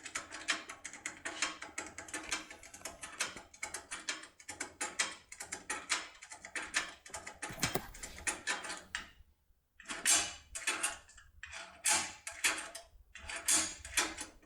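Rapid, irregular metallic clicking and scraping of a safe lockpick worked inside a lever safe lock, the pick rocked up and down under tension against the levers. The clicks pause briefly about nine seconds in, then come back louder.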